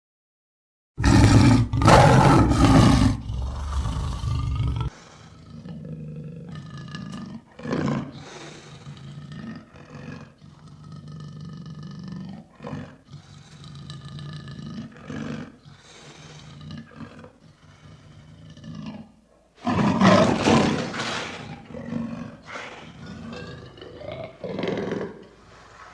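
Lion roaring: after a moment of silence, one loud full roar of about four seconds, trailing into a run of shorter, quieter calls. About twenty seconds in, a second loud roar comes, again followed by shorter calls.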